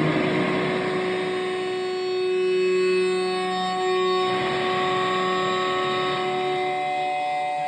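Improvised drone music: several sustained, steady tones held over a noisy wash that fades back, with the held pitches shifting about four seconds in.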